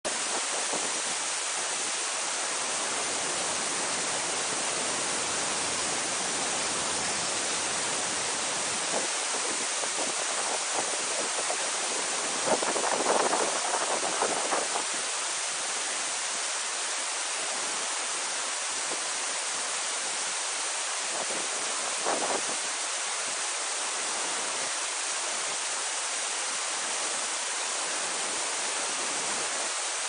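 Yudaki waterfall's upper cascade: white water rushing steadily over a rock lip, an even, unbroken rush of water. A couple of brief louder moments rise above it, the longest about halfway through.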